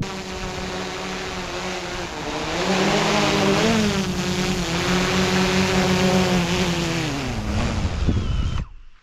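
A small engine running, its pitch and loudness rising a few seconds in, holding steady, then winding down and cutting off near the end.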